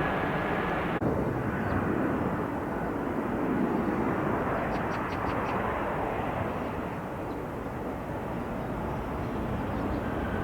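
Jet airliner engine noise: a steady rumble.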